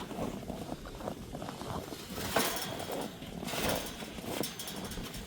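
Water being poured from a container into the goats' water trough to top it off: an uneven splashing that swells and fades.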